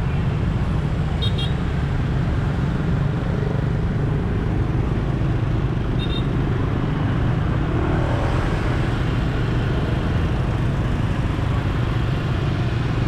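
Steady low rumble of a motor vehicle with road noise, unbroken throughout.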